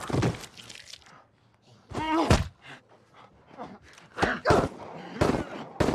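Hand-to-hand struggle with a zombie: a few sharp thuds of bodies and blows, two of them close together near the end, and a short strained vocal cry about two seconds in.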